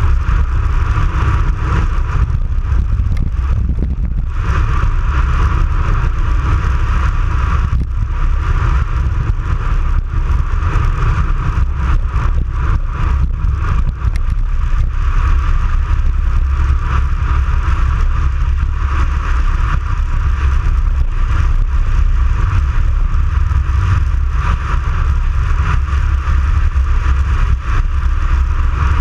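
Wind buffeting the microphone of a bicycle-mounted action camera on a fast road descent: a steady low rumble with a hiss above it, easing briefly about four and eight seconds in.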